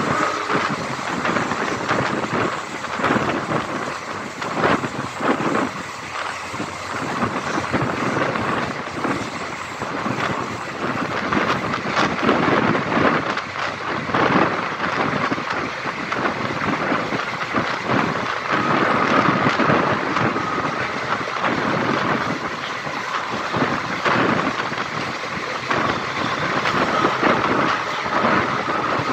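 Passenger train running at speed, heard from an open coach window: a steady rumble of wheels on the track mixed with gusty wind buffeting the microphone.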